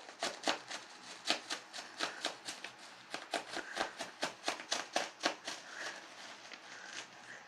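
Bubble wrap crackling and popping in quick, irregular snaps, thinning out over the last couple of seconds.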